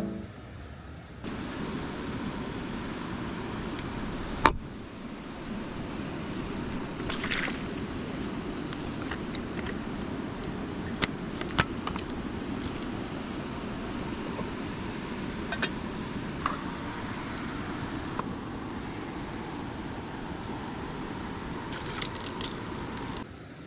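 Steady outdoor rushing noise with scattered sharp clicks and crackles, and one loud knock about four and a half seconds in; it starts about a second in and cuts off abruptly near the end.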